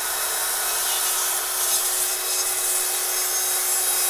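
Stihl battery-powered chainsaw running steadily, with a constant electric motor whine, as its chain makes a very light, shallow detailing cut into a dry log.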